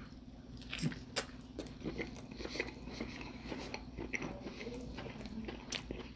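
Close-up chewing and biting of a chili dog, with irregular wet mouth clicks and smacks.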